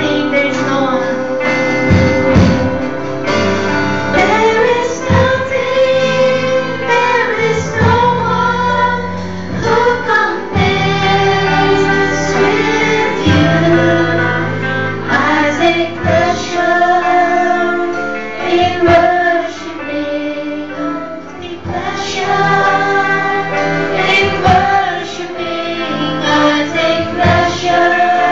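A woman singing a worship song into a microphone, backed by a live band of keyboards, drum kit and acoustic guitar.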